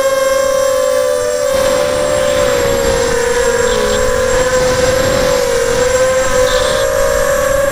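Graupner Alpha250 racing quadcopter's brushless motors and propellers whining in flight, heard from its onboard camera: several close pitches that waver and cross as the throttle changes. A rushing noise joins in about a second and a half in.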